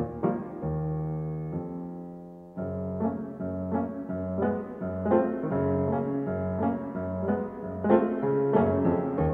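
Background piano music: a gentle piece of melody notes over held low notes.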